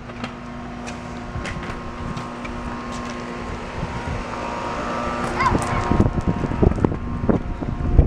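A steady motor hum that grows gradually louder, with scattered clicks, and rumbling knocks and rustling in the last couple of seconds.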